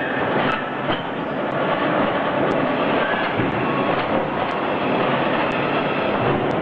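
Hydraulic concrete block making machine running its vibrator while the press head bears down on the mould, compacting the concrete into blocks. A loud, steady mechanical din with no breaks.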